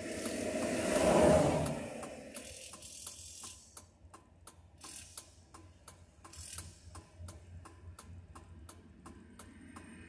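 Hazard-light flasher ticking steadily inside the cab of a parked vehicle, about three clicks a second. A vehicle passing on the highway swells to its loudest about a second in, then fades.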